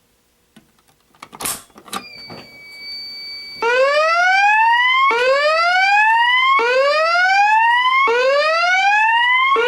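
A manual fire alarm pull station snaps as it is pulled, a steady high beep sounds, and then the fire alarm voice-evacuation speakers sound the whoop tone: loud repeated rising sweeps, about one every second and a half, the building evacuation signal.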